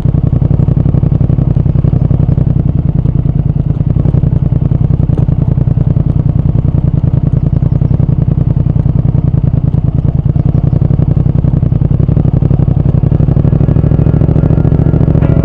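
Triumph Speed Twin 1200's parallel-twin engine and exhaust running at a steady cruise, a loud, even, low pulsing beat.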